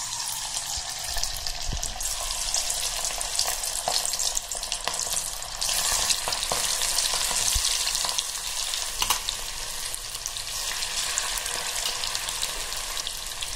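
Marinated prawns deep-frying in hot oil in a cast-iron kadai: a steady sizzle with scattered pops, growing louder about six seconds in as more prawns go into the oil.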